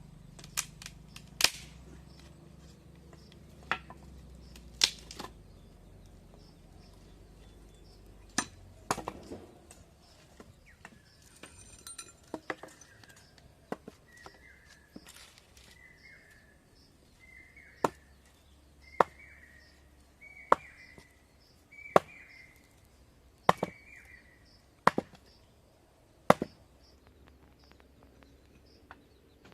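Food being chopped with a knife: a series of sharp strikes, irregular at first, then about one every second and a half in the second half.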